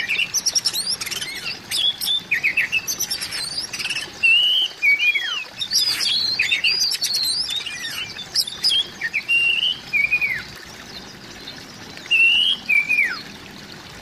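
Oriental magpie-robin singing a rapid, varied song of clear whistles, down-slurred notes and sharp chirps. The song stops about two thirds of the way through, then comes back with one short phrase.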